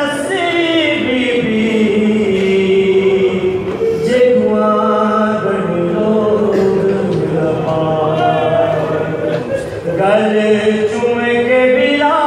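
A man chanting a Punjabi noha, a Shia mourning lament, unaccompanied, in long held notes that bend up and down.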